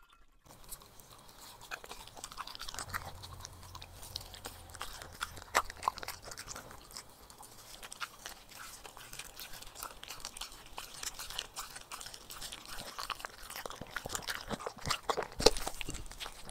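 A corgi biting and chewing grilled meat, with many irregular wet crunches; the loudest bites come near the end.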